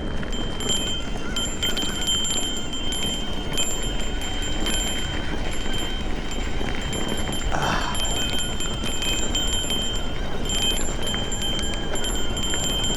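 Electric mountain bike ridden along a dirt trail: steady rumble of tyres and wind, with a high metallic ringing that comes and goes.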